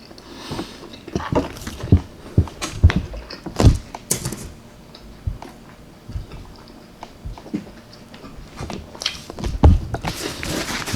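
Close-up eating sounds of a person chewing chicken parmesan: irregular wet smacks and clicks of the mouth, in clusters, busiest between about two and four seconds in and again near the end.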